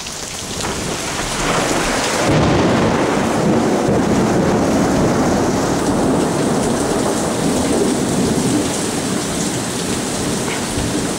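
Heavy rain pouring down with a long roll of thunder that builds about two seconds in, rumbles on for several seconds and eases off near the end.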